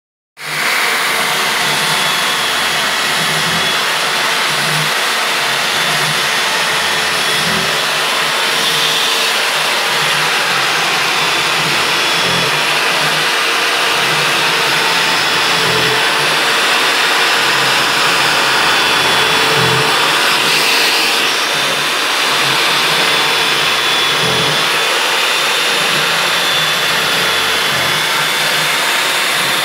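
Corded electric hand drill running steadily with a constant whine as it bores holes into a wooden board.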